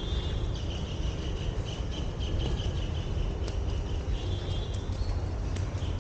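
Insects chirring in a pulsing high trill, stopping about three and a half seconds in and starting again near the end, over a steady low rumble.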